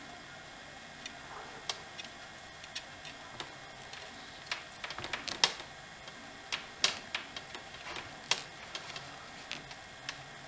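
Irregular small clicks and ticks from hands working a chainsaw's plastic fuel line and a length of mechanic wire, punching a hole in the hose end to attach the wire. There is a quick flurry of clicks about five seconds in.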